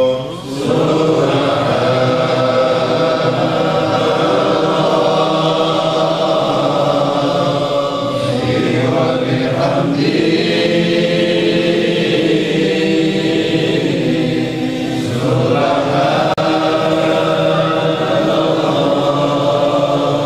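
Group of men's voices chanting devotional Islamic chant together in unison, long held phrases with brief breaks between them about eight and fifteen seconds in.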